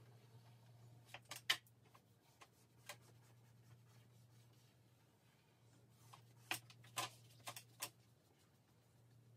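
Charcoal pencil scratching on drawing paper in short strokes: a few quick strokes a little over a second in, another near 3 s, and a cluster of sharper strokes around 6.5 to 8 seconds, over a low steady hum.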